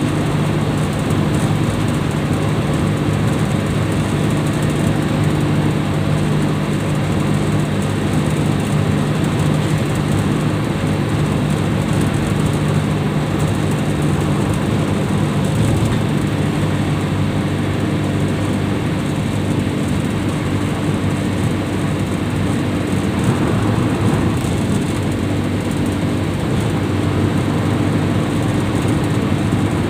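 Steady engine drone and tyre and road noise inside a van's cab cruising at highway speed; the engine hum eases about halfway through.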